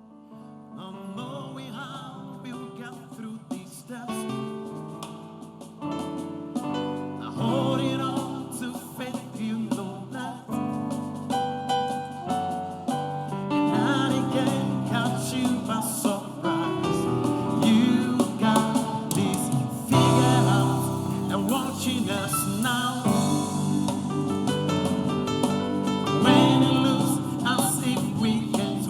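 Gospel music: keyboard chords with singing, swelling in loudness over the first half and then carrying on at full strength.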